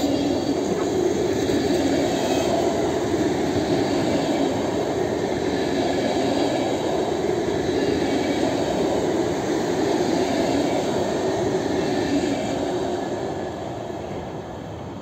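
Aeroexpress ESh2 double-deck electric multiple unit passing close at speed: a loud, steady rolling rumble of wheels on rails, fading about thirteen seconds in as the train pulls away.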